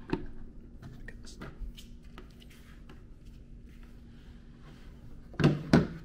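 Handling noises while the power cord is plugged into a portable fridge: light clicks and rustles, then two loud knocks about a third of a second apart near the end.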